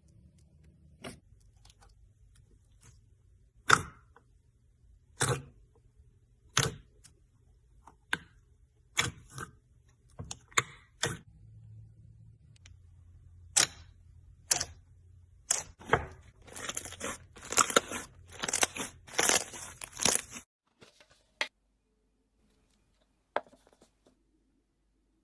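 Slime being pressed and squeezed by hand, giving sharp single pops a second or two apart, then a quick run of crackling pops that cuts off abruptly near the end.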